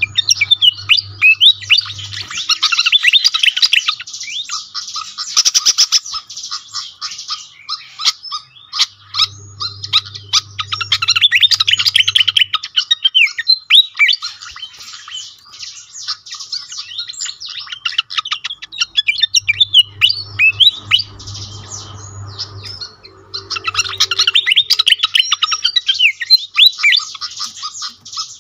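Malaysian pied fantail singing: fast, busy runs of high squeaky chirps with quick rising and falling notes, in bursts of a few seconds with short pauses between.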